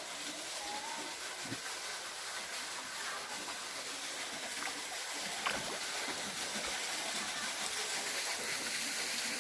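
Rushing water of a waterfall, a steady hiss that grows slowly louder, with one sharp knock about five and a half seconds in.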